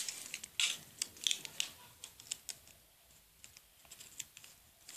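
Small irregular clicks and rustles of a plastic drinking straw being handled and worked between the fingers, most frequent in the first two seconds and sparser after.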